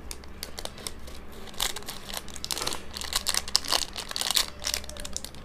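Metallised plastic snack wrapper being cut open with scissors: irregular crinkling and crackling from the packet as it is handled, with several louder snips and crunches along the way.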